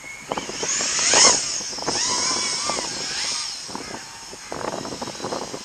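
FPV racing quadcopter's brushless motors whining in flight, the pitch rising and falling with the throttle. Loudest about a second in, then fading gradually toward the end.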